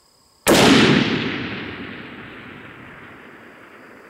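A single rifle shot from a .300 Win Mag Thompson/Center Venture fitted with a clamp-on muzzle brake, about half a second in. Its report echoes and dies away over about three seconds.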